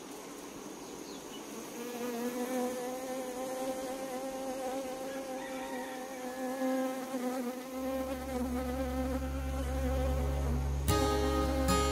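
Honeybee buzzing in flight: a wavering hum that grows louder. A deep steady drone joins about eight seconds in, and strummed guitar music starts near the end.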